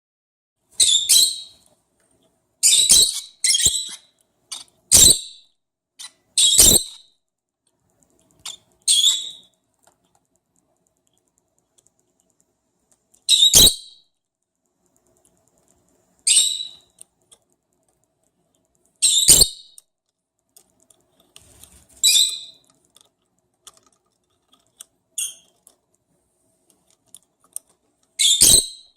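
Lovebirds giving short, sharp, high-pitched chirps, about a dozen spaced irregularly a few seconds apart.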